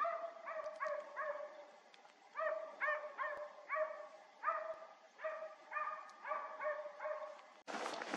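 Hunting dogs barking in a steady run of short barks, about two a second, with a brief pause about two seconds in. Footsteps crunching in snow start suddenly near the end.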